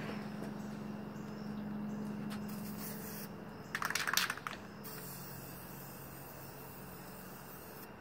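A short hissing burst from an aerosol spray-paint can, about four seconds in, over a steady low hum.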